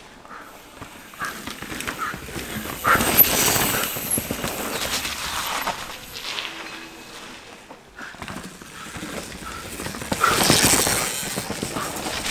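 Mountain bikes passing on a rough dirt trail, tyres skidding and rattling over rocks: two loud passes, about three seconds in and again about ten seconds in.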